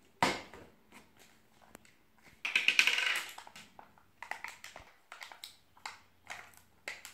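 Plastic Play-Doh tub lids being pried off and handled on a tabletop: a sharp plastic snap just after the start, a rough rustling scrape about two and a half seconds in, then a string of light plastic clicks and taps.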